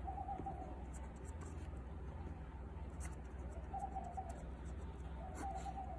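Fine-tip permanent marker writing on a sheet of paper: faint, short scratchy strokes over a steady low hum.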